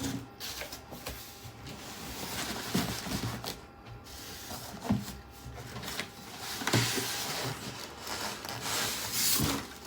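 Rubbing and scraping as a PC case and its box packaging are handled, with a soft knock every couple of seconds.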